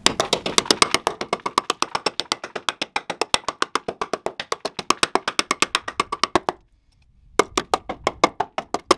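Fast, even woodblock-like percussion, about seven taps a second, breaking off for under a second about two-thirds of the way through and then resuming.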